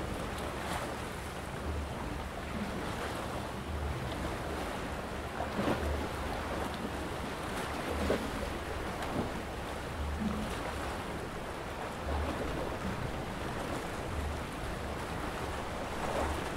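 Small waves of a calm sea lapping and washing against shoreline rocks, with a few soft splashes, and wind rumbling on the microphone.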